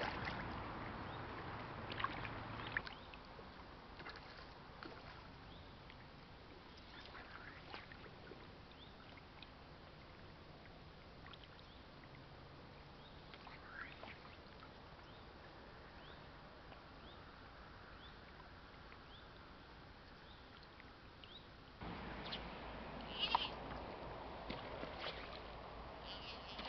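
Quiet riverside ambience: a faint hiss with scattered short chirps and small clicks, louder again near the end with a brief cluster of sharper clicks.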